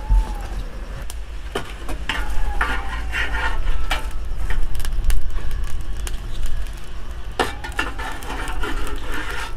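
Metal tongs poking and rearranging burning lump charcoal in a sheet-metal charcoal stove: irregular clicks and clinks of charcoal on metal, with longer scraping rattles about two seconds in and again near the end.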